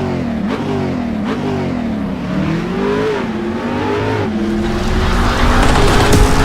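Car engine revving up and down repeatedly, its pitch swinging several times before steadying and growing louder near the end.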